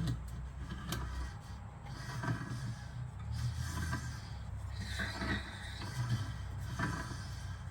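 Soft rubbing and light clicks of a spoke wrench working on a bicycle wheel's spoke nipples, tightening a loose spoke while the wheel is trued, over a low steady hum.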